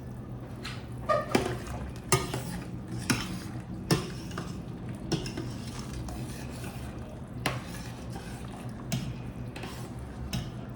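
A spoon stirring a pot of chicken soup, knocking against the pot several times, most often in the first four seconds, over a steady low hum.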